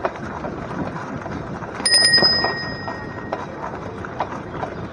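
A handlebar bicycle bell rung once with a quick flurry of strikes about two seconds in, ringing on for about a second and a half as it dies away. Underneath is the steady noise and light rattling of the bicycle rolling over a dirt lane.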